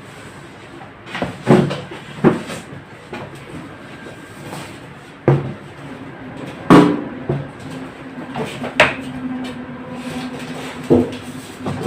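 Irregular knocks and clunks, about ten of them, some ringing briefly, as of metal parts of a microwave oven casing being handled and fitted.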